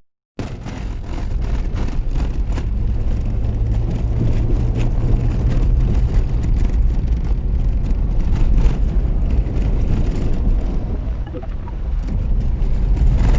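Car driving, a steady low engine and road drone.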